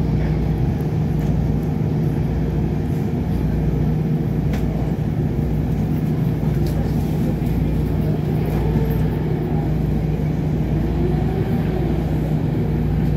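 Steady hum inside a SEPTA Market–Frankford Line rail car standing at a station platform: the onboard equipment runs with a constant low tone while the train is stopped. A few faint clicks sound over it.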